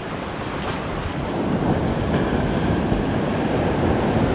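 Ocean surf washing against a rocky shore, swelling louder over a few seconds, with wind buffeting the microphone.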